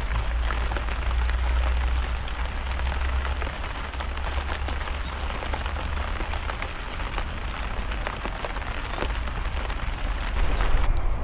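Steady heavy rain falling, with many separate drops striking a surface over a low rumble. The hiss of the rain thins out suddenly right at the end.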